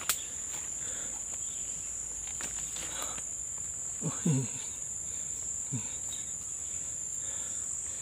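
Steady, high-pitched chirring of insects. There is a sharp click right at the start, and two short, low voice sounds about four and six seconds in.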